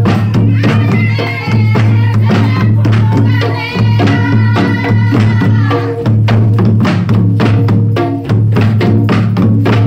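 Several Santali tumdak' (madal) barrel drums played by hand in a fast, driving folk dance rhythm. A high melody runs over the drumming from about a second in until about six seconds in.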